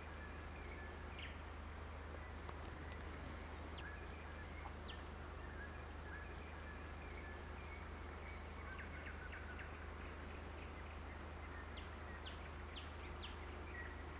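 Faint outdoor ambience: scattered short bird chirps and calls over a steady low hum, with a quick run of four chirps near the end.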